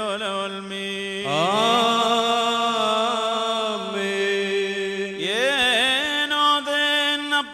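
Slow Syriac Orthodox liturgical chant sung during the Holy Qurbana, with long held, ornamented notes. A new sung phrase slides in about a second in and another about five seconds in.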